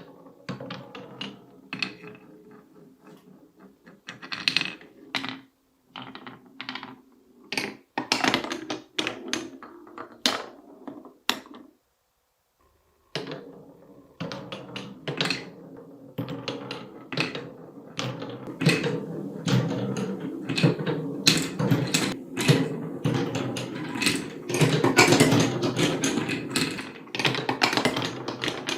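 Marbles rolling and clattering down a wooden TrixTrack marble run: a steady rolling rumble broken by many sharp taps and clicks as they drop and strike the track. The sound breaks off for about a second near the middle, then comes back denser and louder.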